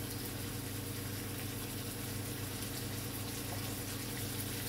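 Boneless chicken thighs frying in olive oil in a pan over a high gas flame: a steady, even sizzle. Under it runs a steady low hum.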